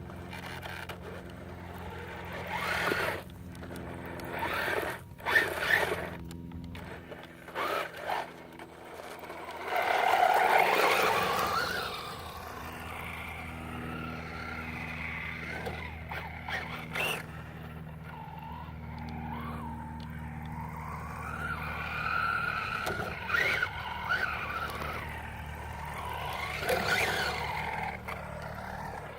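Radio-controlled short-course truck driving on dirt: its brushless electric motor whines up and down with throttle while the tyres scrabble and spray dirt in short bursts, the longest about ten seconds in. Under it runs a steady low drone.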